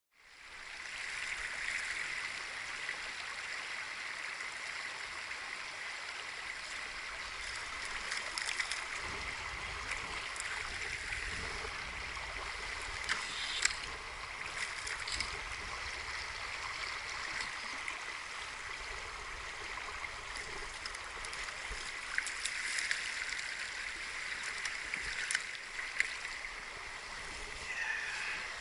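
Steady rush of a high, fast-running river around a wading angler, fading in at the start. A few short clicks and knocks stand out over the water.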